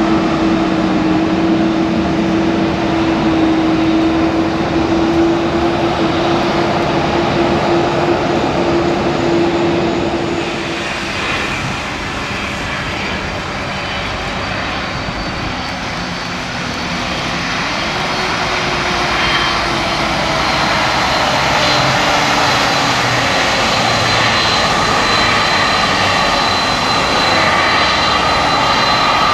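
Taxiing jet airliners' engines running at idle. First a Boeing 737 gives a steady whine over a noisy rush. About ten seconds in it gives way to a Boeing 767-300ER's twin turbofans, whose whine grows louder as it approaches.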